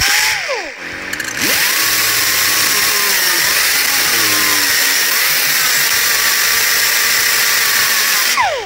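Angle grinder grinding off a broken hardened screw extractor (easy-out) stuck in a brass plug in a steel valve block. A short run winds down at the start; the grinder spins up again about a second and a half in and cuts steadily, a loud grinding hiss with a motor whine that dips and wanders under load, then winds down near the end.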